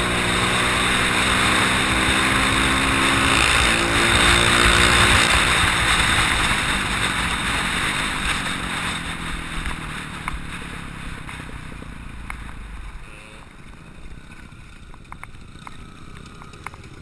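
Dirt bike engine running at speed under heavy wind and road rush on an on-board microphone; the engine note shifts about three and a half seconds in. Engine and wind then fade gradually as the bike slows to a crawl over the second half.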